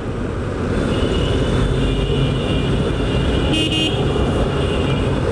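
Steady wind and road rumble of a motorcycle riding through city traffic, with vehicle horns honking: a held horn tone from about a second in until about three seconds, then a short, sharper honk.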